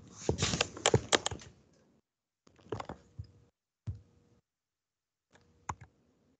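Typing on a computer keyboard: a quick run of key clicks, then three shorter bursts of clicks with pauses between them.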